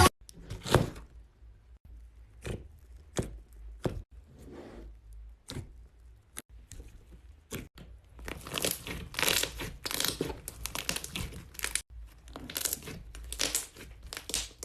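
Slime being worked by hand, giving sticky clicks and pops. They come singly, about one a second at first, then as dense crackling from about eight seconds in.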